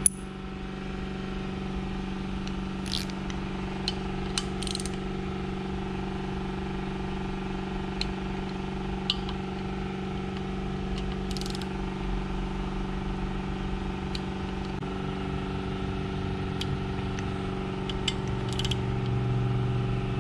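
Snap-on torque wrench tightening the rocker box bolts of a Harley Twin Cam engine to 20 foot-pounds: a loud sharp click right at the start, then a dozen or so scattered short clicks of the wrench ratcheting and clicking over. A steady background hum with several tones runs underneath and shifts in pitch about three-quarters of the way through.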